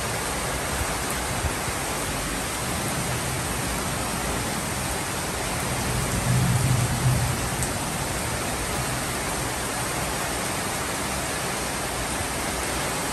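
Heavy tropical rain pouring steadily, a dense, even hiss. A short low swell comes about halfway through.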